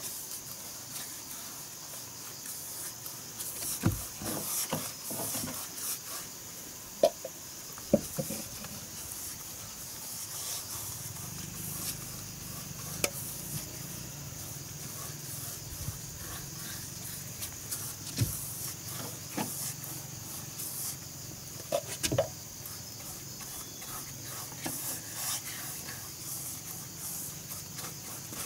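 Paintbrush strokes rubbing paint onto rough wooden board siding, with a few sharp knocks from time to time, over a steady high chorus of insects.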